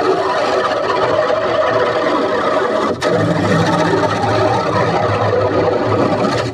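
Heavily distorted, effects-processed logo sound, a loud dense wash with no clear tune. It dips for a moment about halfway and cuts off suddenly at the end.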